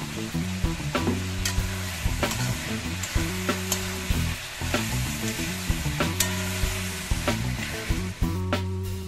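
Chicken livers sizzling in a hot iron kadai while a metal spatula stirs and tosses them, its edge knocking and scraping against the pan about once a second.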